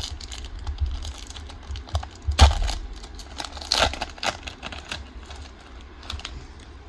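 Foil Pokémon card booster pack being handled and torn open by hand: a run of sharp crinkles and crackles, loudest about two and a half and four seconds in.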